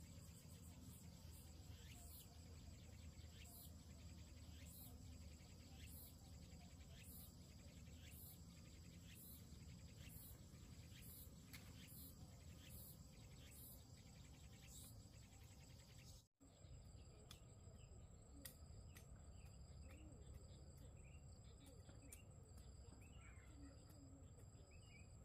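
Faint insects chirring: a steady high buzz with a regular pulse a little more than once a second, which cuts out for a moment about two-thirds of the way through.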